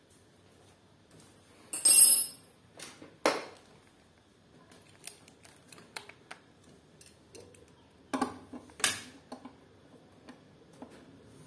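Metal parts of a chrome door-guard latch and its screws clinking and clicking as they are handled against an aluminium door frame: a short jangly metallic clatter about two seconds in, scattered light clicks, then a couple of knocks near the end.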